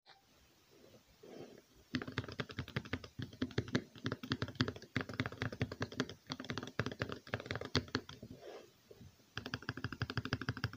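Keycapped mechanical keyboard switches in a 3D-printed switch tester being pressed in a rapid run of clicks and clacks. The clicking starts about two seconds in and pauses briefly near the end before starting again.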